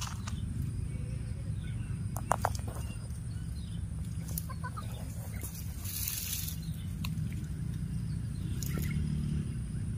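Outdoor background: a steady low rumble with a few sharp clicks, the loudest about two seconds in, a brief high rustle about six seconds in, and a few faint short chirps.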